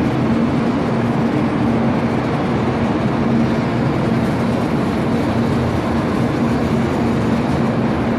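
Shinkansen bullet train moving slowly along the platform: a steady rush of wheel and air noise with a constant low hum.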